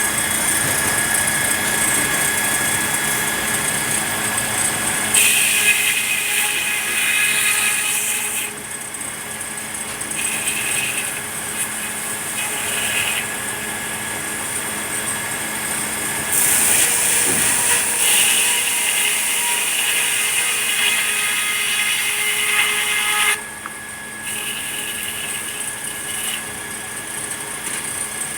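Sawmill machinery running steadily with a constant hum. A saw cuts through red pine twice: a short cut about five seconds in, and a longer one of about seven seconds past the middle that stops abruptly.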